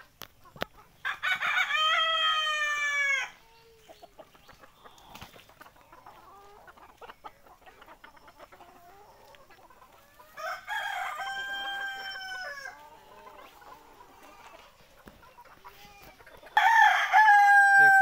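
Desi roosters crowing three times, each crow about two seconds long: one about a second in, one midway, and one starting near the end. Hens cluck faintly in between.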